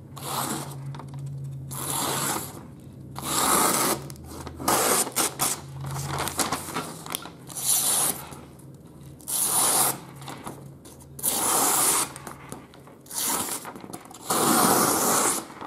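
Factory edge of an HX Outdoors TD-09 bushcraft knife slicing through thin leaflet paper in a sharpness test: about ten short rasping cuts, one every second or two, with paper rustling between them.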